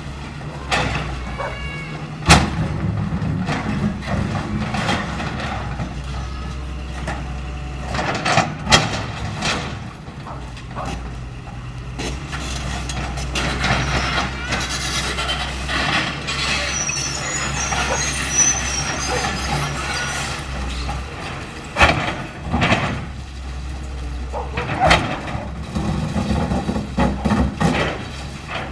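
Caterpillar 325L excavator's diesel engine running steadily under load, with several sharp bangs and cracks and a long stretch of clattering, crunching debris as the machine breaks up a building.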